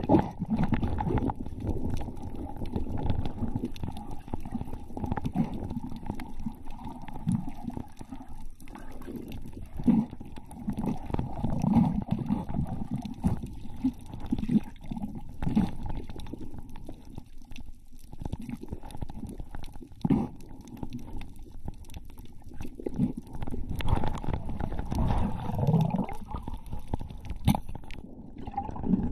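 Muffled underwater sound heard through a camera's waterproof housing: a low rumble of moving water with irregular dull knocks and bumps.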